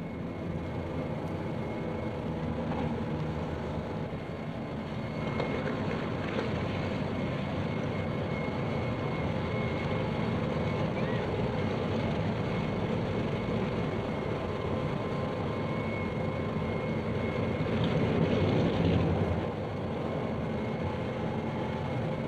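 Steady aircraft engine noise of an airport apron, with a brief swell about eighteen seconds in.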